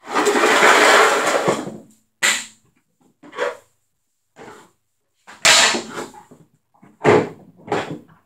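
CCM Heat street hockey stick taking shots: a noisy scrape of about two seconds, then several sharp slaps spaced over the next six seconds.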